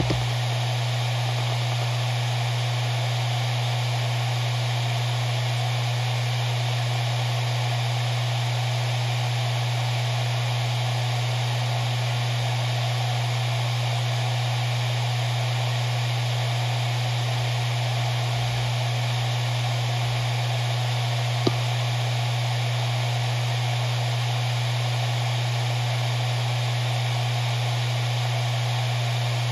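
Maxtor MaXLine Pro 500 7200 RPM hard drive spinning at speed: a steady low hum with a hiss over it, from a drive its owner calls in good health. A single click sounds about two-thirds of the way in.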